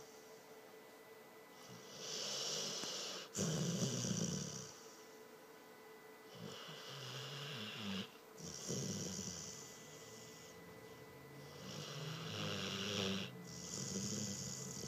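A dog snoring loudly, one long snoring breath every couple of seconds, each with a low rasp and a breathy hiss. The loudest breath comes about four seconds in.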